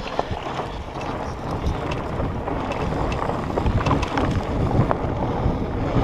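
Wind noise on the microphone of a mountain bike riding fast down a dirt trail, with tyre noise and short clicks and rattles from the bike over bumps, growing louder toward the end.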